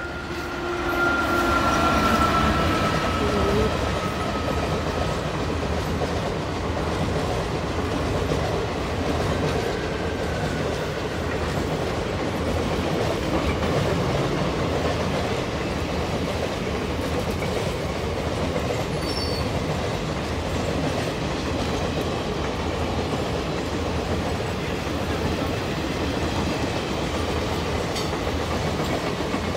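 Passenger express hauled by a WAP-4 electric locomotive running past, its long rake of coaches clattering rhythmically over the rail joints. A high tone dies away in the first few seconds.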